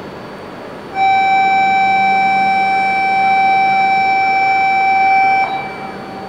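Shinkansen platform departure buzzer: one loud, steady electronic tone that starts abruptly, holds for about four and a half seconds and cuts off sharply. It signals that the train is about to depart. A steady low hum runs underneath.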